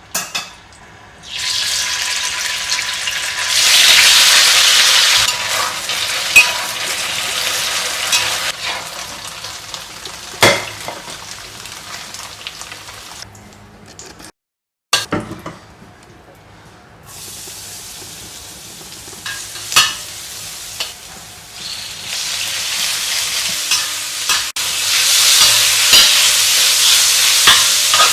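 Food sizzling as it fries in a pan, with a few sharp clacks of utensils on the pan. The hiss jumps in level and cuts off abruptly several times, including a brief full dropout about halfway through.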